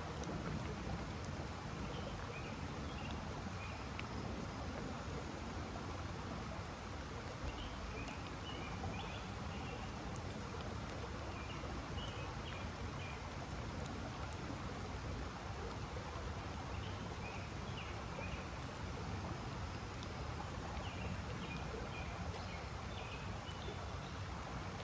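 Steady outdoor background noise with a small bird chirping in short runs every few seconds.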